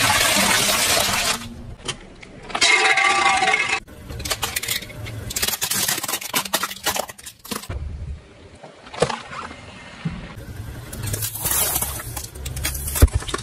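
Run of short clips of a car tyre rolling over and crushing small objects: crackling, cracking and clinking, over a low engine rumble. The sound changes abruptly every second or two as the clips cut.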